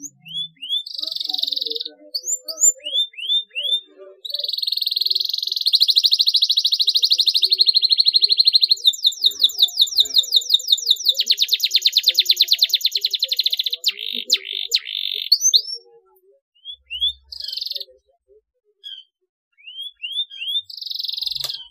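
Domestic canary singing: short rising chirps at first, then a loud buzzy trill that turns into a long, fast rattling trill, ending about fifteen seconds in, followed by scattered single chirps and a short buzz near the end.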